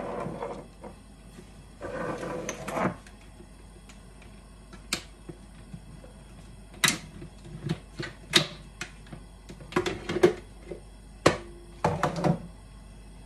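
Handling noise, then a run of sharp, irregular clicks and knocks, some with a brief ring: the hard plastic jug and lid of a countertop food processor being handled and fitted together. The motor is not running.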